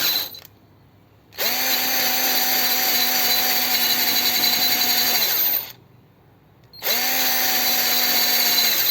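Cordless drill stripping rust from scooter metal, its battery running low. It stops just after the start, spins back up, runs about four seconds and winds down, then spins up again for the last two seconds.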